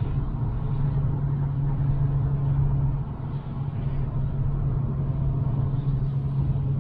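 Steady interior noise of a Mk6 Volkswagen GTI driving on a wet road: a constant low drone with tyre hiss over it. It eases briefly about three seconds in.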